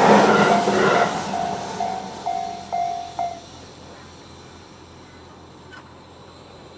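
The noise of a passing train fades away in the first second while the level crossing's electronic warning bell (Tobu tone C) keeps striking about twice a second. The bell stops about three and a half seconds in as the train clears the crossing, leaving a quiet background with one faint click near six seconds.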